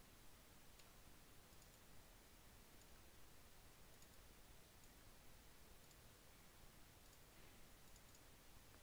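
Faint, irregular computer mouse clicks over a low hiss, some coming in quick pairs.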